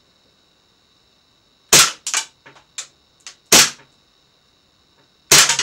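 Cybergun Desert Eagle CO2 airsoft pistol firing three single shots, each a sharp crack, about two seconds apart. Lighter clicks come between the shots.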